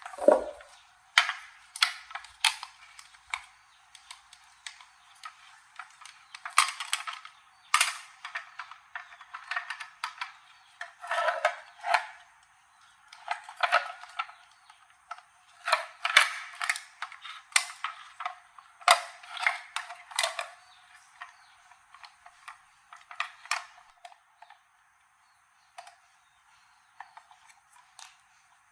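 Irregular sharp clicks, taps and short scrapes of hand tools and small metal parts being handled during a toaster repair. They come in clusters with short pauses between, and the sound is thin, with no low end.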